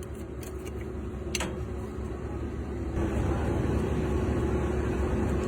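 Engine running steadily at idle with a low rumble and a faint steady hum. A sharp click sounds about a second and a half in, and the running gets louder about three seconds in.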